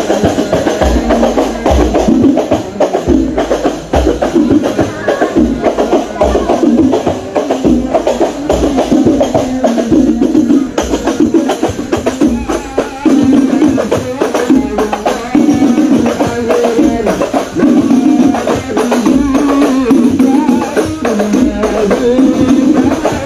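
Music with a regular drum beat and jingling hand percussion, and a melody line over it.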